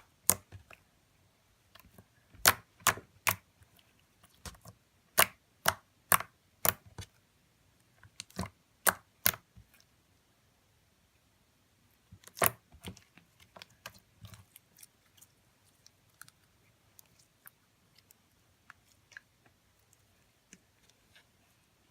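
Jiggly lemon poppy seed slime with black sand in it being poked and stretched by hand, making sharp, irregular clicks and pops. They come thick in the first half, with one loud pop about twelve seconds in, then fainter and sparser.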